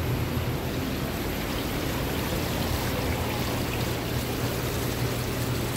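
Steady splashing and pattering of water sprayed from a perforated pipe into a tray of live shellfish in a seafood display tank, over a low steady hum.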